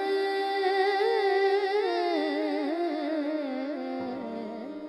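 A woman singing a long, drawn-out phrase of a slow Urdu song without clear words, with wavering ornaments on the held notes, fading away toward the end as the song closes.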